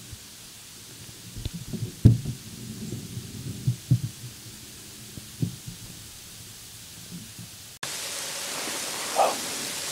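Scattered dull low thumps against the microphone. About eight seconds in, a cut brings a louder steady hiss.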